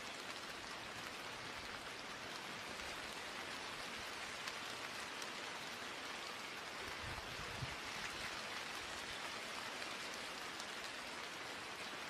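Steady rain falling, a dense even patter with scattered drop ticks, and a brief low rumble about seven seconds in.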